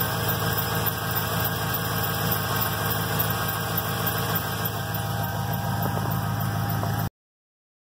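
2001 Chevy Silverado's 5.3-litre V8 with a Cherry Bomb muffler idling steadily while it warms up after a cold start in 10-degree cold. The sound cuts off abruptly near the end.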